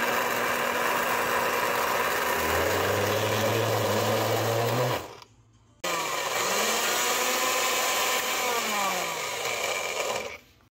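Hamilton Beach glass-jar blender running, chopping peeled garlic cloves. It stops for a moment about halfway, starts again with its pitch dipping and rising as the load shifts, and winds down near the end.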